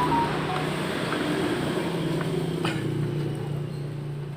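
A motor engine running steadily, its pitch shifting slightly about three seconds in.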